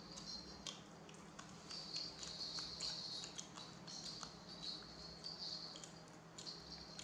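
Baby macaque nibbling a crispy white snack: scattered small crunches and clicks, over a thin, high background sound that comes and goes.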